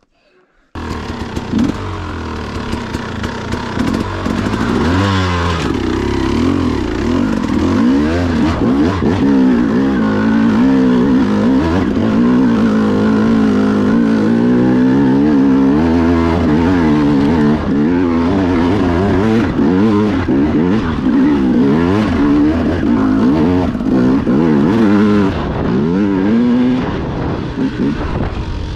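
Enduro dirt bike engine running hard under load up a steep, rough track, its revs rising and falling continuously as the throttle is worked, heard from the rider's own seat.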